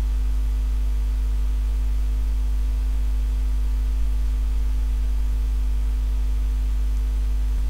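Steady electrical hum with a faint hiss, unchanging throughout: a deep hum with a few fainter higher hum tones above it.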